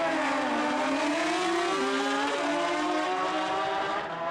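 Pro Street drag-racing motorcycle accelerating hard down the strip at full throttle, its engine note climbing and then dropping several times as it shifts up through the gears.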